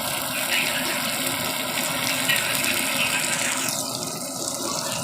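Fish frying in hot oil, the oil sizzling with a steady hiss.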